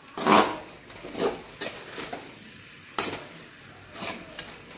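Steel spoon stirring raw chicken pieces and masala in a metal kadai: irregular scrapes and knocks of the spoon against the pan, about one a second, the first the loudest.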